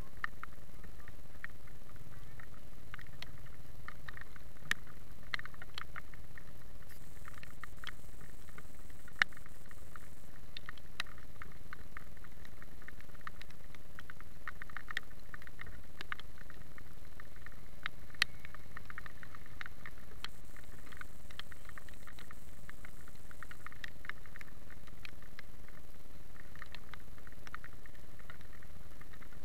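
Raindrops ticking irregularly on the camera and nearby surfaces, with two sharper taps about nine and eighteen seconds in, over a steady low hiss.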